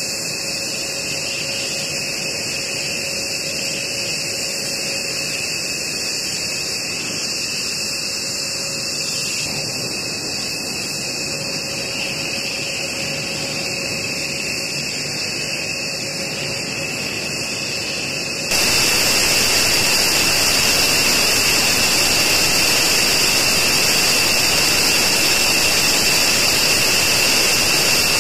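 Jet engines running steadily: a high turbine whine over a rush of noise. About eighteen seconds in it cuts abruptly to a louder, brighter rush.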